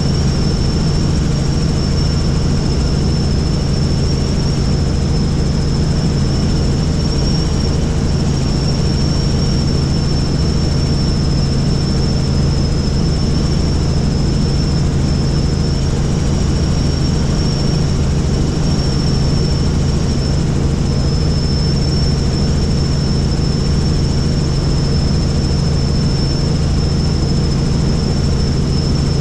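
Helicopter running steadily: a low drone with a constant high whine above it, unchanging throughout.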